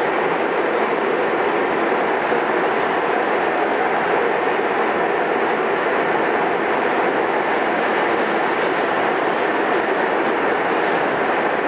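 Westinghouse-Amrail R68 subway car heard from inside while running between stations: a steady, even noise of the car and its wheels on the rails, with no braking or change.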